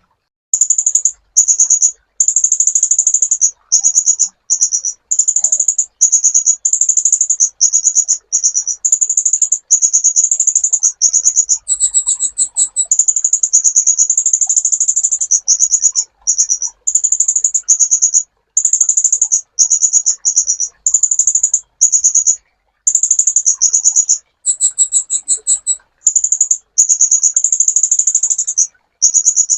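Kolibri ninja, a sunbird, singing: rapid high-pitched trilled phrases one after another with short breaks, a couple of them pitched higher.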